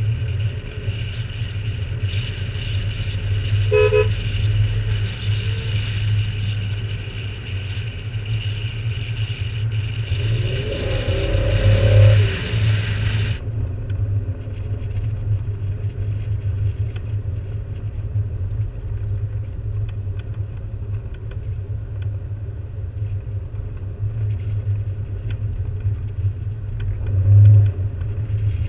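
Jeep engine and road noise heard from a camera on the hood, a steady drone, with a brief car horn toot about four seconds in. After a sudden change partway through, the Jeep runs along a snow-covered trail with the engine drone and a short louder surge near the end.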